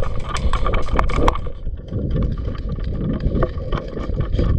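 Wind buffeting a body-worn camera microphone, with scattered knocks and rattles from handling and moving gear.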